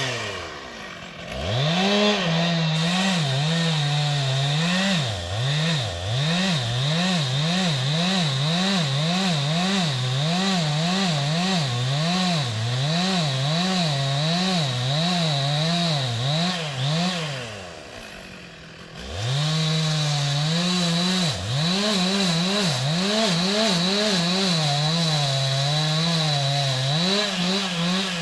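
Stihl MS 881 two-stroke chainsaw cutting into wood at high revs, the engine pitch rising and falling in a quick regular rhythm as the bar works the cut. About two-thirds of the way through, the revs fall away almost to idle for a moment, then the saw is throttled back up and goes on cutting.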